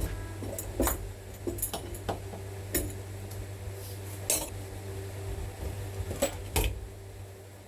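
Irregular sharp knocks and light clinks of tools and lumber being handled during carpentry work, over a steady low hum.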